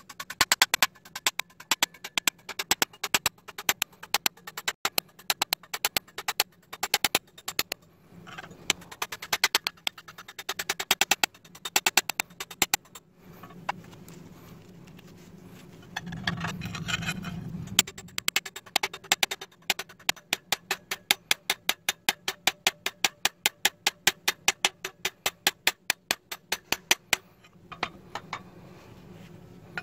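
Bearing-steel knife blade worked against a steel file in quick repeated strokes, giving sharp metallic clicks about four or five times a second. The clicks pause about halfway, and a short rushing scrape follows.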